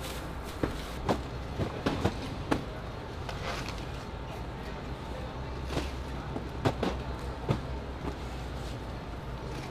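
Steady low machinery hum of a ship's hangar bay, with a dozen or so scattered knocks and thumps of cargo handling as cardboard boxes are set down and stacked on pallets by hand.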